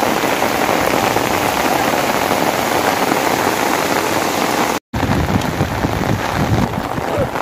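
Steady heavy rain hissing, with no other clear sound; it cuts out completely for a split second about five seconds in, and a lower rumble comes in after the break.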